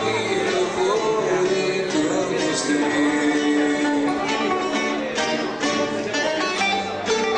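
Live acoustic music: an acoustic guitar and a second, smaller plucked lute-type instrument playing together, with frequent plucked notes.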